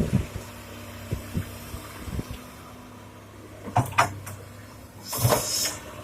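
Komatsu PC 200-6 excavator loading stone into a dump truck: the diesel engine runs with a steady low hum while rocks knock sharply against steel several times, and a short rush of stone sliding comes near the end.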